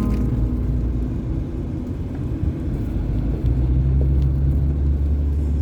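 Low rumble of a motor vehicle engine running, settling into a steady low drone about three and a half seconds in.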